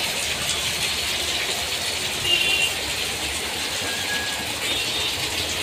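Steady background din with no clear single source, and two faint, brief high tones about two and four seconds in.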